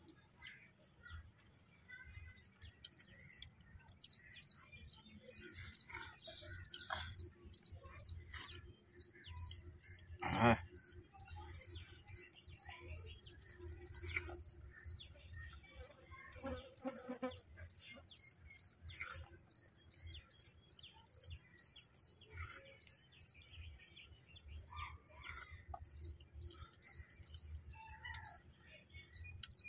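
A small animal chirping: sharp, high single chirps repeated about twice a second, starting a few seconds in, breaking off briefly near the end and then starting again.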